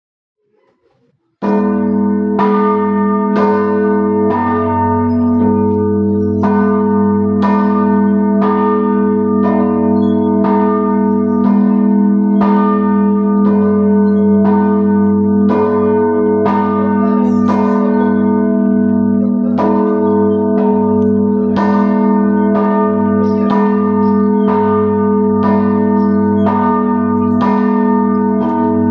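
The 1690 Pskov bell of about 220 poods (roughly 3.6 tonnes), cast by Fyodor Klementyev, rung in the ochepnoy manner with the heavy bell swung on a lever. Its clapper strikes about once a second, each stroke landing on the still-sounding hum, so the ringing runs on as one continuous deep drone. The first stroke comes about a second and a half in.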